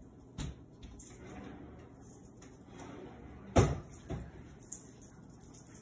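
Household knocks in a kitchen: a sharp knock, then, a little past halfway, a loud thump followed by two lighter knocks, like a cabinet or drawer being shut.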